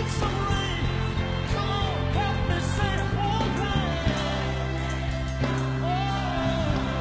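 Live gospel singing: a man's voice holds long notes that bend and slide, over a backing band with steady, sustained bass notes.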